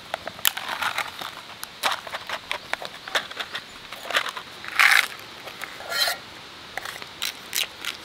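Plastic yogurt cup and its snap-over topping compartment crinkling and crackling in the hands as they are opened and bent. Short clicks run throughout, with louder crackly rustles about five and six seconds in as the toppings are tipped into the cup.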